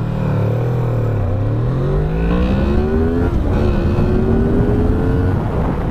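2017 Honda VFR800's 90° V4 engine accelerating hard from a standing start. The engine note dips briefly, then climbs steadily. It breaks off at an upshift a little over three seconds in, climbs again in the next gear, and eases off near the end.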